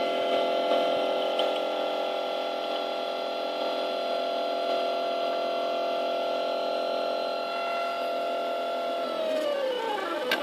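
Zmorph 2.0 S 3D printer's stepper motors whining at a steady pitch as the print head travels a long straight line of the first layer. Near the end the pitch falls as the head slows.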